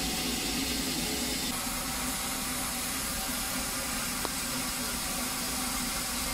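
Steam hissing steadily from a standing narrow-gauge steam locomotive.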